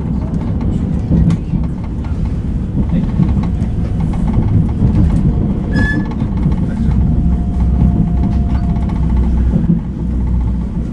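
Interior of an A35 tram in motion: steady low rumble of the wheels and running gear on the rails, with a brief high squeak about halfway through and a thin steady whine for a few seconds after it.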